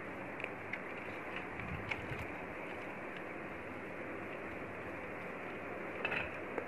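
Small clicks and taps of plastic and metal parts being handled and pressed into place inside an opened projector, scattered through the first few seconds with a short cluster near the end, over steady background noise.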